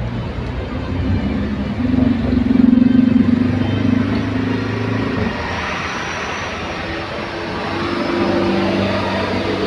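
Motor vehicle engine running steadily, growing louder and then cutting away about five seconds in. A second engine hum comes in near the end.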